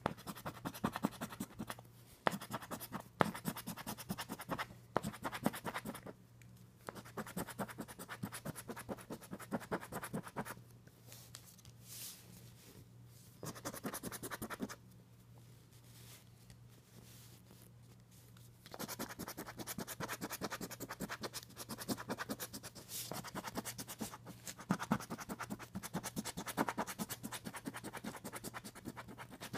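A Deluxe 7's Playbook scratch-off lottery ticket being scratched in quick strokes, in several bouts with short pauses between. A steady low hum sits underneath.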